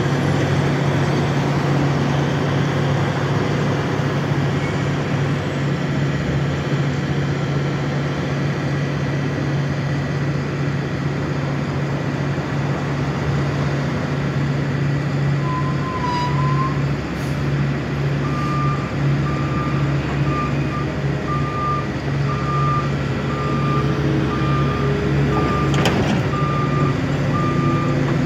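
Heavy diesel equipment running with a steady low drone. About two-thirds of the way in, a vehicle backup alarm starts beeping, roughly once every 0.7 seconds, and there is one sharp knock near the end.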